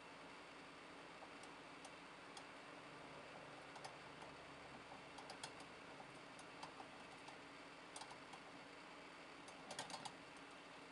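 Crooked wire-mesh hamster wheel clicking faintly as a Syrian hamster runs in it: irregular light ticks, bunching about halfway through and again near the end.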